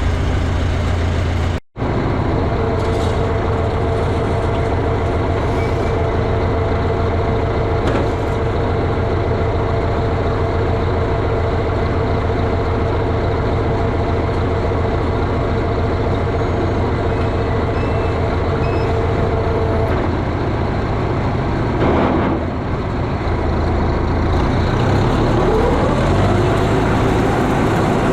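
Farm tractor engine running steadily under load while raking hay, with a steady whine over it; near the end a tone rises as the engine picks up.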